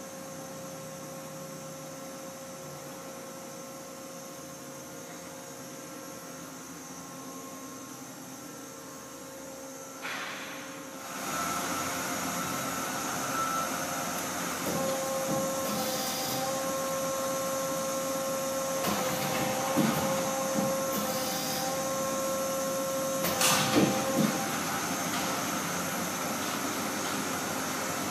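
Mori Seiki SL-65 CNC lathe running under power: a steady hum with a few fixed whining tones, which grows into a louder mechanical whirr about ten seconds in. Several sharp clunks follow in the second half.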